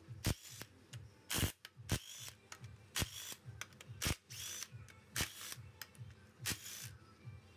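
Ratchet wrench working the front pump bolts of a GM 4L60E automatic transmission, in about nine short bursts with pauses between.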